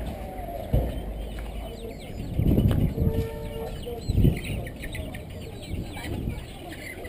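Caged chickens clucking, with many short high chirps from birds in the market cages, over street bustle. Three dull low thumps stand out, about a second in, midway and around four seconds in.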